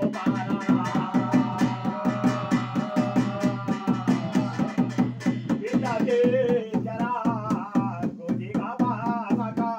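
Devotional singing over a fast, steady beat on a barrel drum. The voice holds one long note for a few seconds near the start, then moves into wavering phrases while the drumming keeps on.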